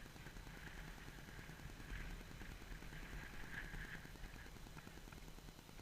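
Low, uneven rumble of wind and movement on the microphone while riding a horse, with patches of faint hiss that come and go.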